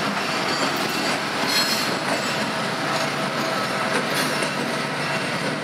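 Indiana Harbor Belt 3GS21B genset switcher locomotive passing close by, its diesel engines running over steady wheel-on-rail noise, with a faint wheel squeal.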